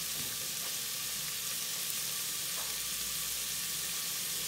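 Chicken wing drumettes sizzling steadily as they fry in hot oil in a pressure cooker pot.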